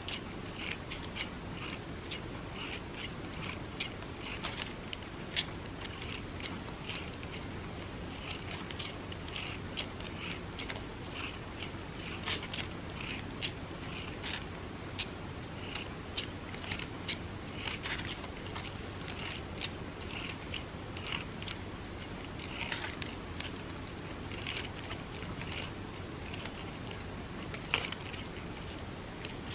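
Scissors snipping a fringe into a strip of crepe paper: a steady run of short snips, about one or two a second.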